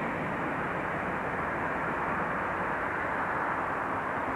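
A train of bogie oil tank wagons rolling past on curved track, a steady rushing rumble of wheels on rails with no distinct clanks or knocks.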